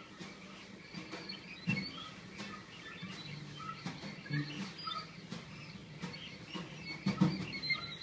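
Quiet free-improvised playing by viola, double bass, drums and guitar: sparse short squeaks and chirps up high, soft low notes and scattered light taps, with a louder low thump about seven seconds in.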